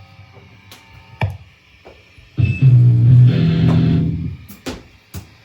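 A single low note or chord struck on an amplified guitar about halfway through, ringing for about two seconds before it fades. A few sharp clicks and taps come before and after it.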